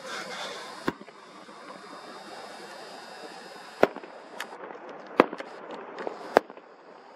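Fireworks salute bursting: several sharp bangs at irregular intervals, a second or more apart, over a steady background hiss.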